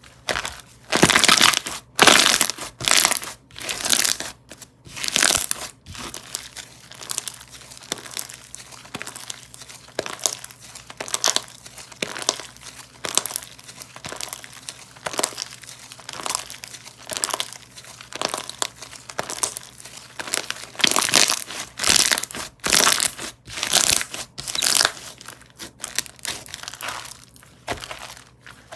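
Cotton candy gelato ice cream donut ball slime being squished and pressed by hand, making irregular crackly, crinkly bursts, louder in clusters about a second in and again past the twenty-second mark.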